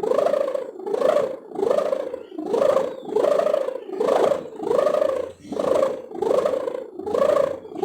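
Ngorok-type sendaren, the 3.5 m bowstring hummer on a flying kite, droning in the wind with a pulsing snore, a bit more than one swell a second, each swell rising and falling in pitch.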